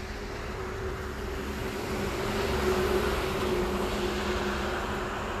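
Engine noise: a steady low hum and rumble, with the noise swelling to a peak about halfway through and easing off, as a vehicle goes past.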